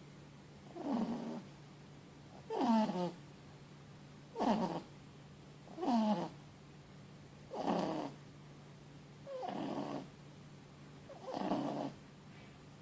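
Four-month-old Boston terrier–French bulldog puppy snoring loudly in its sleep. The snores come about every second and a half to two seconds, seven in all, each falling in pitch.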